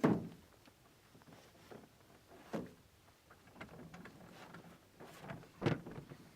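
Knocks and bumps in a jon boat: a sharp knock at the start, another about two and a half seconds in and the loudest near the end, with faint clicks and rustles between.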